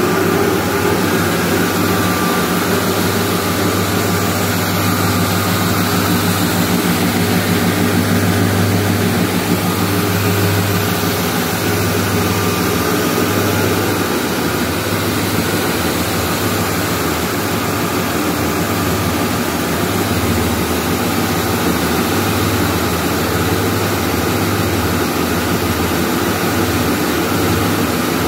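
Aluminium-foil and stretch-film winding machine running: a steady mechanical hum with an even low drone.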